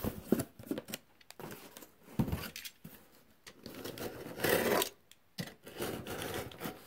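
A cardboard shipping box being handled and slid across a tabletop: scattered light knocks and rubbing, with a louder scrape about four and a half seconds in.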